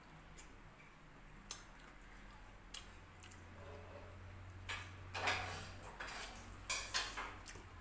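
Close-up eating noises from chewing duck meat eaten by hand: a few sharp clicks, then louder mouth smacks about five seconds in and again near the end.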